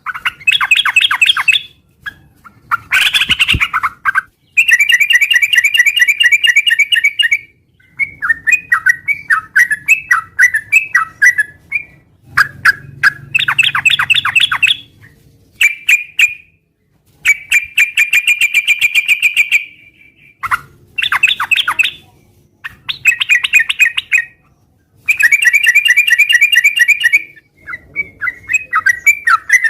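Yellow-vented bulbul (trucukan) singing steadily: bursts of fast chattering phrases, each one to three seconds long, repeated with short pauses between.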